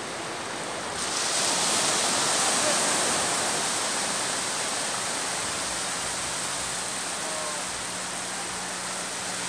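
Sea surf breaking and washing up a flat, wet sandy beach. A steady rush of water that swells about a second in and then eases a little.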